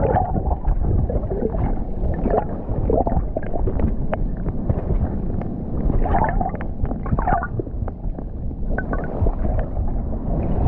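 Sea water churning and bubbling around a rock covered in red bait, heard by a camera held under the surface. A muffled, mostly low noise with scattered short clicks.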